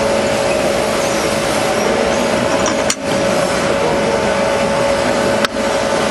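Steady machine-shop noise: an even hum of running machinery with a constant tone, briefly cut out twice.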